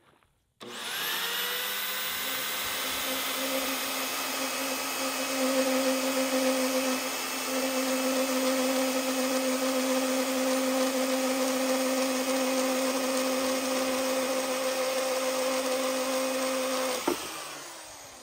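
Vevor portable band saw starting up, its motor whine rising for about a second, then running steadily as the blade cuts through rusty steel stock clamped in its vise. Near the end it is switched off with a click and the motor winds down.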